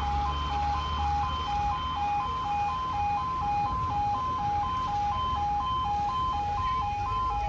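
Level crossing alarm sounders (Apollo E2S) sounding their two-tone yodel, a steady high-low alternation at about two cycles a second, as the crossing closes for an approaching train. A low rumble fades out over the first second or so.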